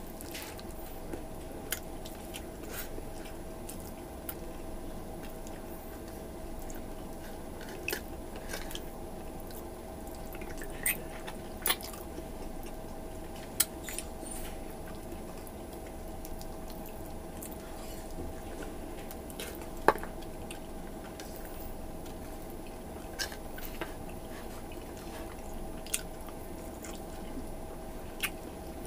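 A person chewing and smacking on sticky, tendon-rich braised beef (balbakwa) eaten by hand, with short wet clicks and smacks scattered through, over a steady background hum.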